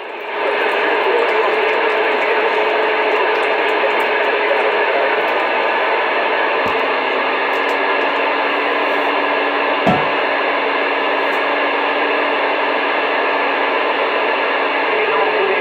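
CB radio receiver hissing with steady static and faint whistling tones on the channel. A dull thump about seven seconds in brings in a second low steady tone, and another thump comes around ten seconds in.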